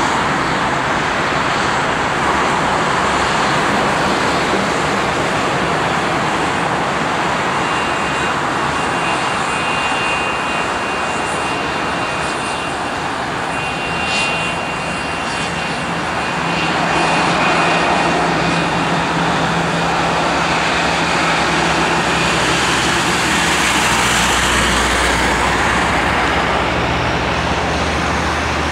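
Airbus A319 jet engines running at taxi power, a steady rush. A thin high whine comes in about a third of the way through and fades out past the middle. A low rumble builds near the end.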